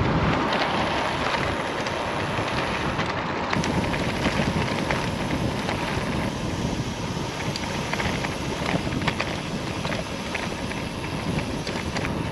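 Wind rushing over the microphone and gravel bike tyres rumbling on rough tarmac during a fast descent down a narrow lane, with scattered small clicks and rattles from the bike over the bumps.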